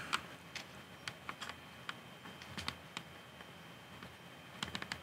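Faint, irregular clicks and ticks of plastic Lego bricks being prodded and pried at with a thin pick, with a quick run of clicks near the end.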